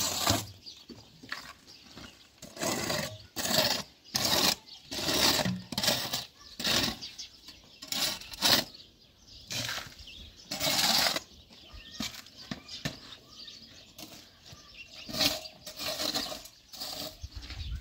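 A mason's trowel scraping and mixing mortar in a plastic bucket: a run of short, rough scraping strokes at irregular intervals, about one a second.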